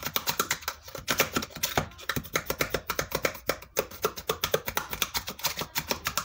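Bone folder rubbing quickly back and forth on the inside of a small cardboard box, pressing the glued panels flat: a fast run of short scraping clicks, several a second.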